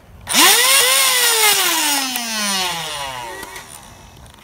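Electric flywheel motors of a Nerf blaster revving up and then spinning down: a whine that jumps up in pitch about a third of a second in, then falls slowly over about three seconds and fades out.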